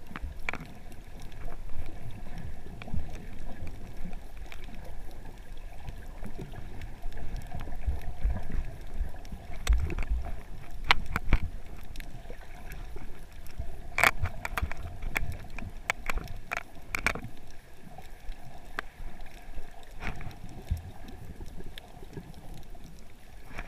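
Underwater sound picked up by a GoPro in its waterproof housing while snorkelling over a coral reef: a muffled low rumble of moving water, with scattered sharp clicks, most of them in the middle stretch.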